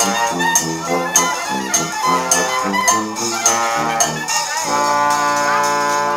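Small Dixieland band playing a bouncy tune on horns over a sousaphone bass, with a regular tapping beat. About two-thirds of the way through, the band holds one long chord.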